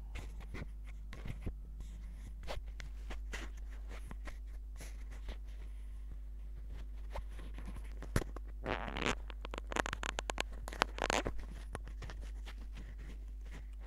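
Irregular rustling, scratching and small clicks of hands rubbing against clothing close to the microphone, densest about two-thirds of the way through. A steady low electrical hum runs underneath.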